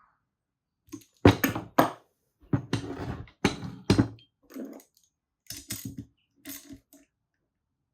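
Metal parts and tools being handled on a workbench: a string of separate knocks and clinks, the loudest about a second in and again around four seconds.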